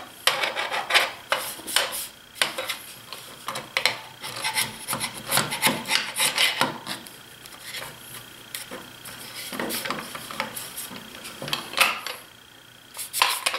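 Dried glue residue being scraped off the jaw faces of a Bessey K-Body bar clamp: a run of short, irregular scraping strokes, with a brief pause near the end.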